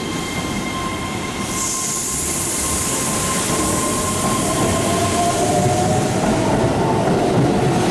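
Keihan 3000 series electric train pulling out of the station and gathering speed, its motors whining with a tone that climbs slowly in pitch as it accelerates. A hiss comes in about a second and a half in, and the sound grows steadily louder as the cars roll past.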